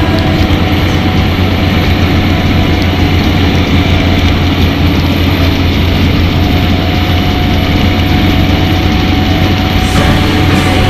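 PistenBully 200 snow groomer's diesel engine running steadily under load as the machine climbs a snowy piste, heard from inside the cab as a loud, even, low drone.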